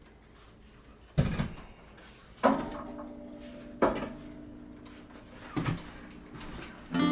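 Four sharp knocks of household objects being handled and set down while a shelf is cleared, the middle two ringing briefly. Strummed acoustic guitar music comes in at the very end.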